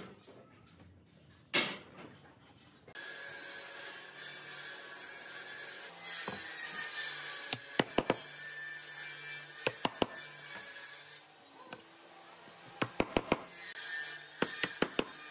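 Wooden slats being set into glued mortises in a wooden rail: sharp wooden knocks in short clusters of two to four. A steady background hum comes in about three seconds in.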